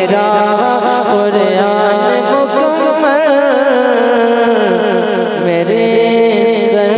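A man singing an Urdu naat into a microphone, drawing out long melismatic notes whose pitch wavers and slides.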